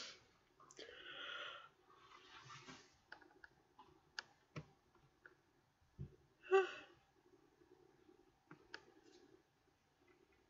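Soft breathy sighs from a tired woman in the first few seconds, then scattered light clicks, a low thump about six seconds in and a brief voiced murmur just after it.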